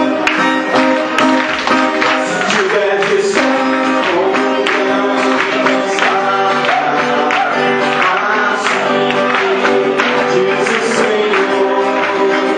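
Live gospel band playing a song: acoustic guitar and drums with a steady beat, and singing.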